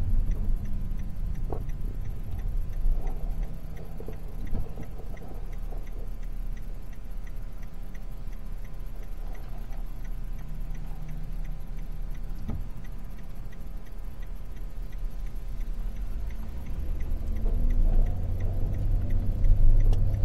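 Car cabin interior: low engine and road rumble with a turn signal ticking steadily, the rumble growing louder near the end as the car picks up speed.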